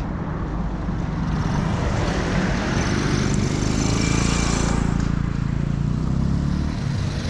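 Motor vehicle engine running close by on the road, with a low engine hum and tyre and engine noise swelling to a peak around the middle, then easing near the end, as a vehicle passes.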